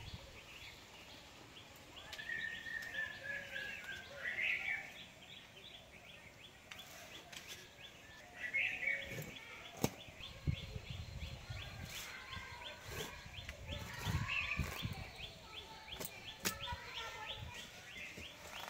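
Birds chirping and calling, with a fast, even ticking call at about four a second through the second half. Over this come a few sharp clicks and soft low knocks as a bottle gourd is sliced on a boti blade.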